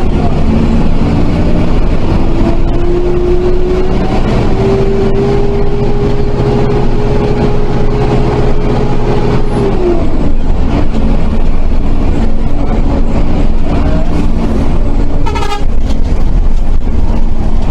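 Intercity bus running at speed, heard from inside: steady engine and road noise, with a whine that climbs slowly for about ten seconds and then drops away. A brief horn toot comes near the end.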